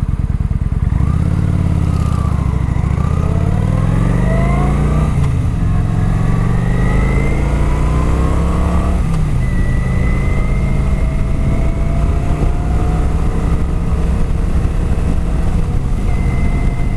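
Kawasaki Vulcan 900 Classic's V-twin engine on its stock exhaust accelerating through the gears. The engine note climbs, drops at an upshift about five seconds in, climbs again and drops at a second upshift about nine seconds in, then holds steady at cruising speed. It is heard through a microphone inside the rider's helmet.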